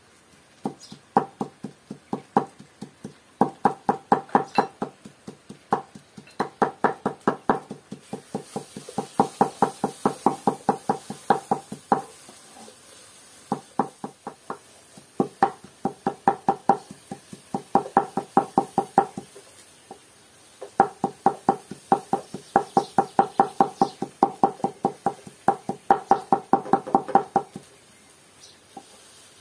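Large knife chopping a pile of fresh herbs finely on a wooden cutting board: runs of quick knocks, about four a second, with short pauses between runs.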